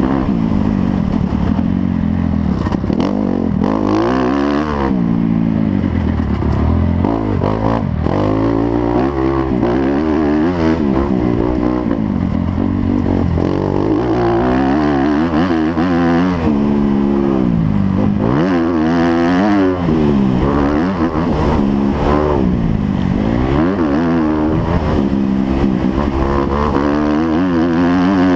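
Motocross motorcycle engines racing, their pitch climbing and dropping back over and over as the throttle is worked, with more than one bike heard at times.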